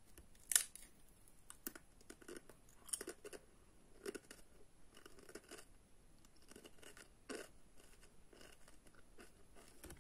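Pringles crisps bitten with a sharp snap about half a second in, then chewed with irregular crunching.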